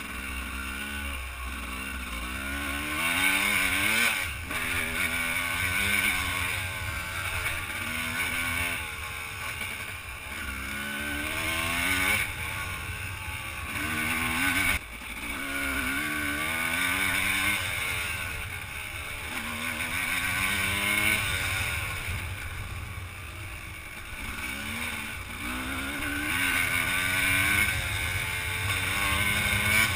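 Dirt bike engine being ridden hard on an enduro course: it revs up and drops again over and over, the pitch climbing and falling every second or two as the rider works the throttle and gears.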